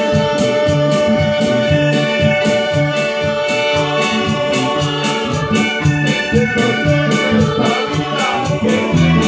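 Small band playing live: electronic keyboards with an organ-like sound over a low bass line and a steady beat.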